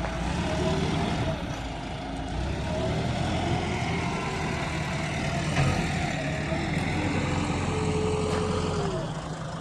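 JCB 3DX Xpert 4WD backhoe loader's diesel engine running steadily while it does filling work.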